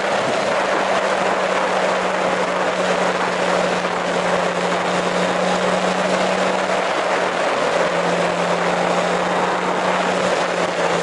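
Motorcycle riding at road speed: heavy wind rush over the camera with a steady engine drone underneath, the drone dropping slightly in pitch a little past halfway.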